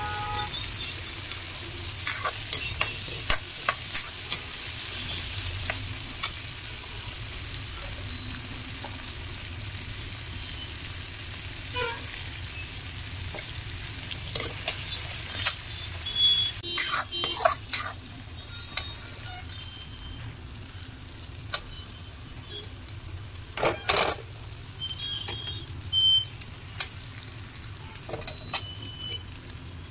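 Chopped onion, tomato and green chili frying in oil in a metal kadai with a steady sizzle, while a steel spoon scrapes and clicks against the pan as it stirs. The scraping comes in busy clusters about halfway through, with one louder knock of the spoon on the pan a little later.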